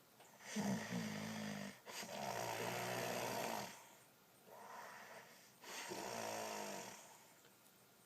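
A sleeping man snoring: two buzzing snores about five seconds apart, with long breathy sounds between them.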